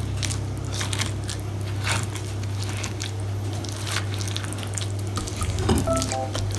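Spoon stirring a thick, wet batter of eggs, jam, oat flakes, nuts and oil in a bowl: irregular squishy scraping strokes. Background music plays under it with a steady low drone, and its melody notes come in near the end.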